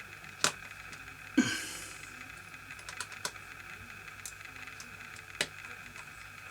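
Sharp clicks and taps of hard plastic laptop parts being handled and pressed together, about six at uneven spacing, the loudest about a second and a half in.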